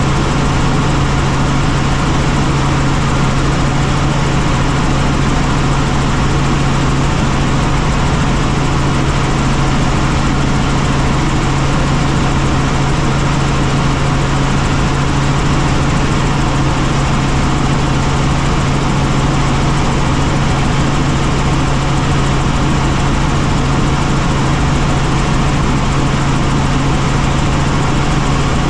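Helicopter engine and rotors running: a steady, loud drone with a strong low hum.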